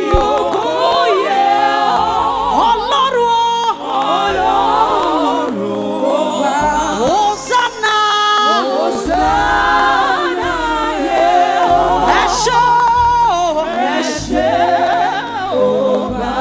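Live gospel worship singing: voices singing a praise song over low, steady instrumental accompaniment.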